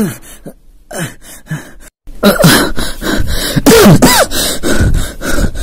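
Frightened vocal cries in a horror scene. A few short gasps fall in pitch at the start, then about two seconds in a loud, dense wailing and moaning begins whose pitch arches up and down.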